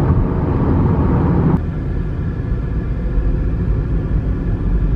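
Car cabin road noise at highway speed, cutting abruptly about a second and a half in to a quieter, lower rumble with a faint steady hum.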